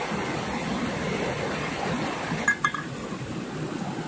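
Stream water flowing steadily over rocks. About two and a half seconds in come a couple of short metallic clinks.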